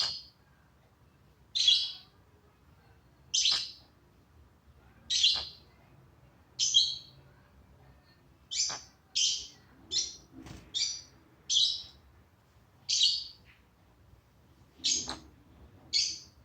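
Pet bird giving short, high chirps one after another, about fourteen in all, roughly one every one and a half to two seconds, coming quicker in the middle.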